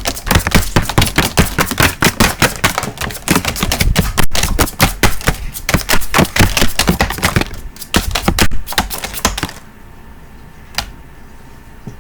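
Playing cards flicked off a hand-held deck one after another in a rapid run of sharp snapping clicks, several a second, stopping suddenly about nine and a half seconds in; one more click follows a second later.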